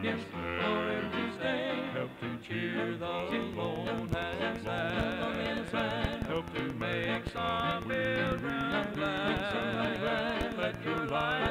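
A gospel vocal group singing a hymn in harmony with vibrato over a light instrumental backing, played from an old cassette tape. It sounds dull, with little treble.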